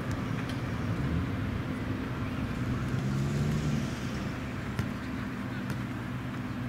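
Steady low rumble of distant engine noise, swelling slightly in the middle, with a few faint sharp taps.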